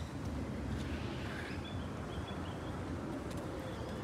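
Birds chirping in short repeated high notes over a steady low outdoor rumble.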